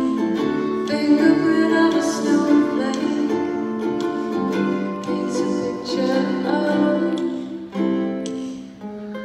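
Solo ukulele strumming chords in a slow song, with a brief dip in level near the end.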